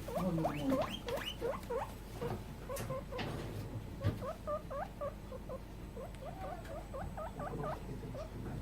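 Guinea pig wheeking: a rapid, steady string of short rising squeaks, a few per second, the begging whistle of a guinea pig that badly wants food.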